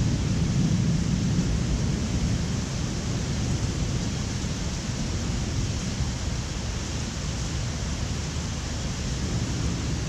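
Steady hiss of heavy thunderstorm rain over a low rumble, the rumble a little stronger in the first two seconds.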